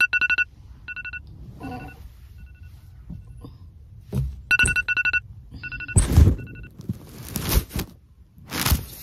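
Phone alarm beeping in quick runs of about four short beeps with a pause after each run. From about six seconds in, loud rustling and thumps of bedding as the sleeper stirs take over.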